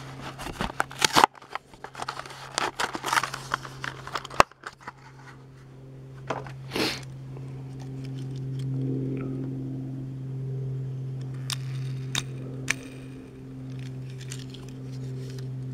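Plastic blister and cardboard of a Hot Wheels card being torn and crinkled open, with sharp clicks, for the first four or five seconds. Then a few light handling clicks over a steady low hum.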